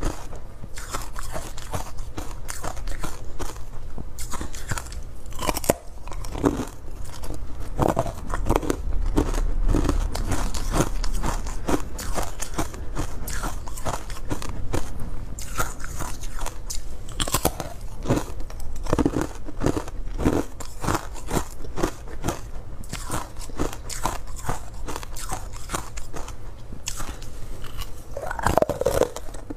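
A person crunching and chewing hard frozen ice in the mouth: dense, irregular crackling crunches, with a louder fresh bite near the end.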